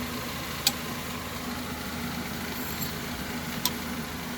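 Two sharp metallic clicks, about three seconds apart, as old metal hair curlers and crimpers are handled and tried to see whether they open, over a steady low mechanical hum.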